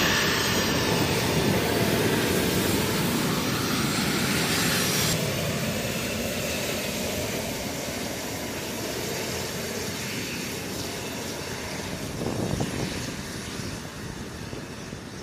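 Twin TF34 turbofan engines of an A-10C Thunderbolt II jet running with a whine and rush as the aircraft rolls along the runway, slowly fading as it moves away.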